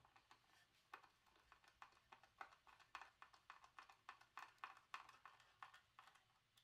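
Faint, irregular clicking, about four or five clicks a second, as a screw is turned down through a steel figure-eight tabletop fastener into the wood.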